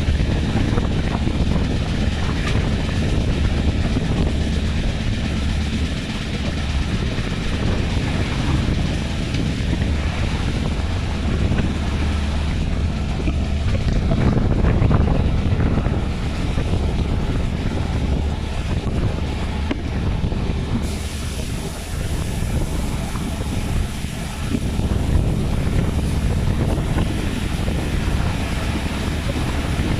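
Wind rushing over a microphone held out of a moving passenger train's window, over the steady rumble of the train running on the rails.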